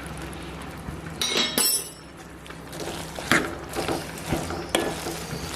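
A metal spoon knocking and clinking against a cooking pot several times, with a cluster of ringing clinks a little over a second in, as the curry is stirred; a low steady hum runs underneath.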